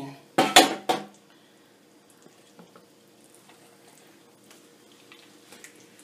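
A short, loud clatter of metal knocking against a glass bowl and a stainless-steel sink, with a little ringing, about half a second in. It is followed by a few faint small clicks and knocks of handling.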